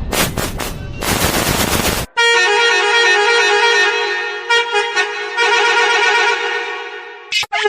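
A harsh, rapid crackling noise for about two seconds, then a bus horn sounding one loud, steady, held blast for about five seconds, briefly broken twice.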